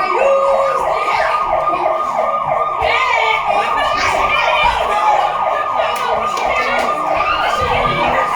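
Siren-style wail in a fast yelp pattern: a tone sweeping down over and over, about three times a second, steady and loud, with voices faintly over it.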